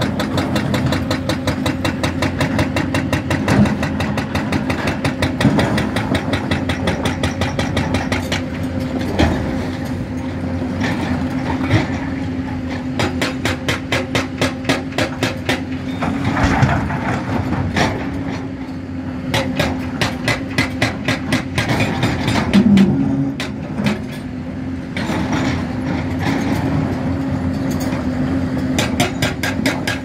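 Hyundai crawler excavator's diesel engine running under load with a steady hum and a fast, even clatter while it digs and loads broken stone. Irregular knocks and scrapes of rock against the steel bucket and the dump truck's bed come through over it.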